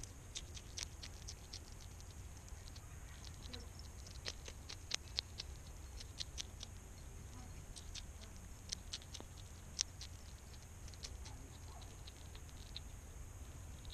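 European hedgehog eating from a food dish: irregular sharp crunching and chewing clicks, in quick clusters with the loudest near the middle, over a steady low hum.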